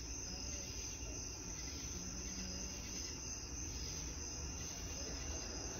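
Crickets chirping in a continuous high trill, over a low steady rumble.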